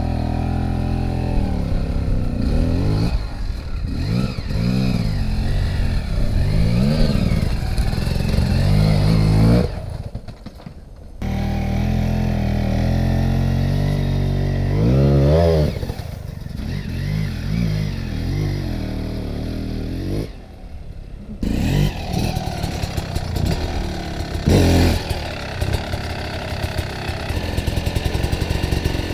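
GasGas EC 300 two-stroke enduro motorcycle engine revving up and down in repeated bursts as the bike claws up a steep slope and over rough ground, with some clatter from the bike. The engine sound breaks off briefly twice.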